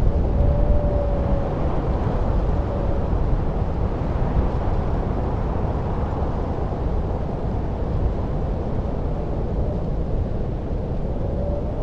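Blizzard wind blowing steadily, a deep rushing noise with a faint whistling howl about half a second in and again near the end.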